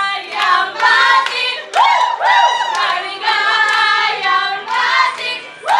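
A group of women singing together, with hand clapping.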